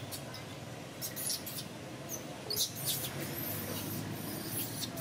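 Baby long-tailed macaque giving short, high-pitched squeaks, repeated many times and coming more often toward the end, while an adult macaque grabs and handles it.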